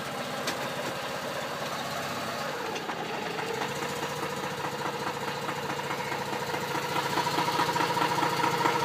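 Mazda RX-8's rotary engine idling with the car just put into gear, checked for the knock it makes on engaging a gear. A faint click about half a second in; about three seconds in the engine note changes and a steady hum grows slowly louder.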